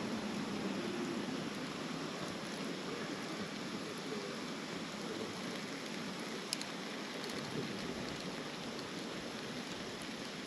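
Small wood fire burning in a compact B6-size fire stand: a steady hissing rush with a few sharp crackles, the clearest about six and a half seconds in.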